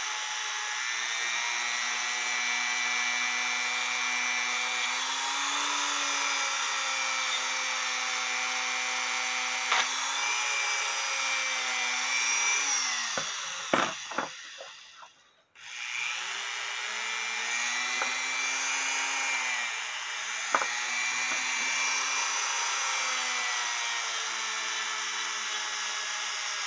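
Dremel-type rotary tool spinning a cloth polishing disc with compound against a cuckoo clock movement: a steady high whine that sags in pitch when the disc is pressed against the work, with a few sharp ticks. About 13 seconds in it winds down and stops, then starts up again a couple of seconds later.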